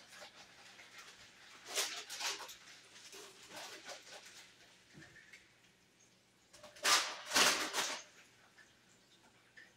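Plastic bag of frozen potato logs crinkling as it is handled, in two bursts, one about two seconds in and a longer one about seven seconds in.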